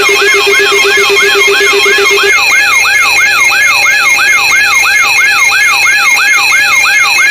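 Electronic siren sweeping rapidly up and down, about three cycles a second, layered with steady high alarm tones. About two seconds in, a low pulsing tone drops out and a faster high warble joins.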